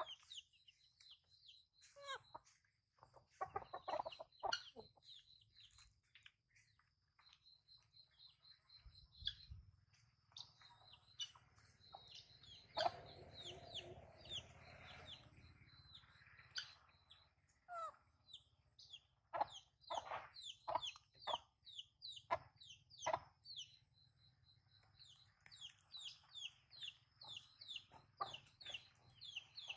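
Domestic hen clucking in short, intermittent calls, with a thin, steady high-pitched tone behind them.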